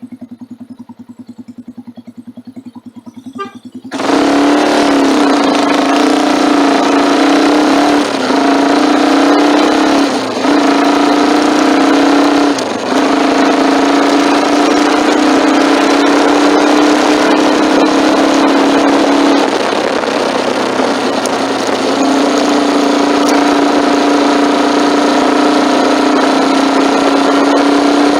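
Motorcycle engine idling with an even pulse, then opening up sharply about four seconds in as the bike pulls away. It then runs steadily under load, with wind noise, from a phone on the handlebar mount. The engine note briefly drops three times, near 8, 10 and 13 seconds in.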